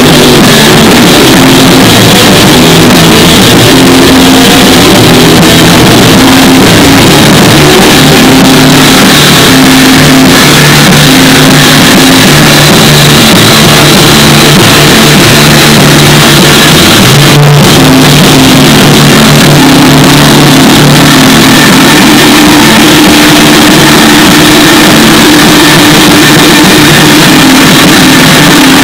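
Punk rock band playing live: electric guitars and drums, loud and flat-out, overloading the recording, with a sharp hit and a sliding guitar note about two-thirds of the way through.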